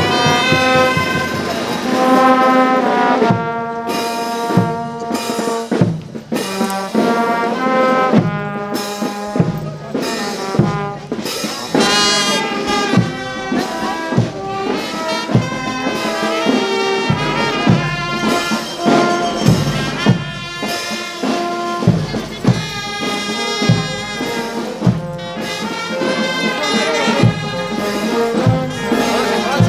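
Brass band playing a melody, trumpets and trombones over a steady percussion beat.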